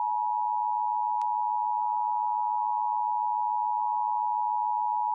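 Emergency Alert System attention signal: a steady, unbroken alert tone that signals an emergency alert message is about to follow.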